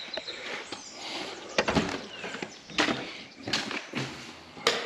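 Footsteps on a hard floor, a sharp step about every second, as someone walks into the building.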